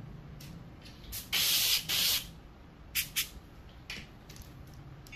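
Dental air-water syringe blowing hissing blasts into the mouth: two loud blasts of about half a second each, about a second and a half in, then a few short puffs.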